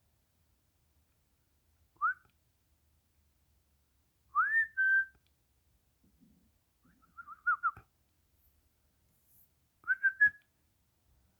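Pet bird whistling in short clear phrases: a quick rising note, then a longer rising swoop that levels into a held note, then a wavering run of notes, and a brief cluster of notes near the end, with pauses between.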